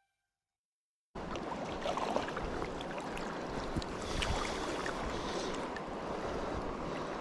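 Small, clear mountain river running over a stony bed, an even rushing water noise that starts suddenly about a second in, with a few light ticks in it.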